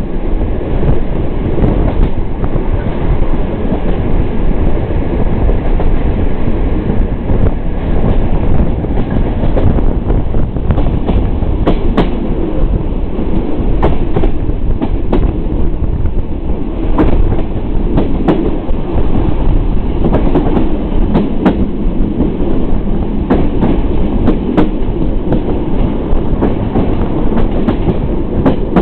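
Intercity passenger train running at speed: a steady, loud rumble of wheels on the rails, with irregular clicks as the wheels pass over rail joints, more of them in the second half.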